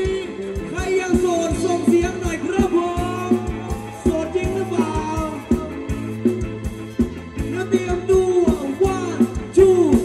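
Thai ramwong dance music from a live band: a steady drumbeat under a sung melody with sliding, ornamented notes.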